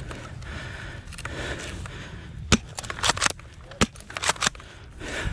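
Airsoft guns firing, a run of sharp cracks in irregular single shots and quick pairs that starts about halfway through and lasts about two seconds.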